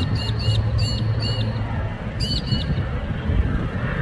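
A bird calling in two quick runs of short, sharply hooked chirps, several a second: one run in the first second and a half, then a brief second run a little past two seconds in. Under it is the low, steady rumble of a distant fighter jet, swelling slightly near the end.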